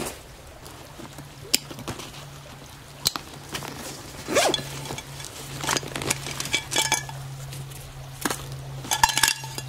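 Nylon backpack being handled: plastic buckles and zip pulls clicking and clinking, a zipper pulled open about four and a half seconds in, and fabric rustling, in a scatter of short sharp clicks and scrapes. A faint steady low hum sits underneath from about a second in.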